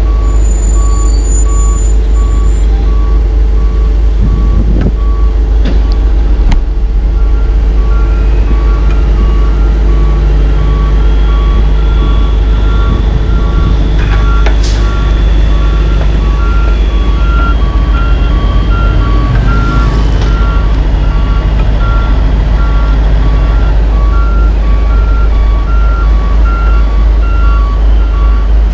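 Tandem dump truck backing up, its backup alarm beeping steadily over diesel engine rumble; a second backup alarm at a slightly higher pitch joins in about seven seconds in.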